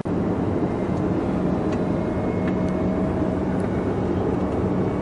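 Car engine and tyre noise heard from inside the cabin while driving, a steady low rumble with a faint even hum.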